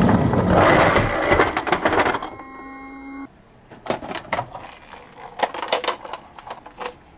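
Small hard toy cars clattering and rattling for about two seconds, then a short steady electronic tone of several pitches, then scattered light clicks and knocks.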